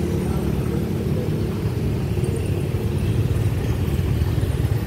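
Minibus engine idling steadily, a low even rumble at the tailpipe, with its exhaust being checked for excessive noise.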